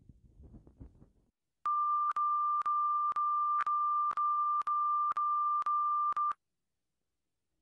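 Test-pattern reference tone: a loud, steady single-pitched beep, broken by short clicks about twice a second, starting about one and a half seconds in and cutting off suddenly. Before it, a faint low rumble.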